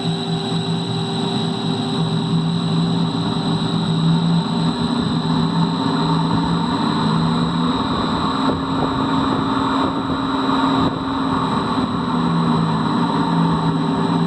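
40 horsepower direct-drive fan motor running with a steady hum over a rough rumble from its bearings, which the owner puts down to rust in the bearings after the motor sat unused for a long time.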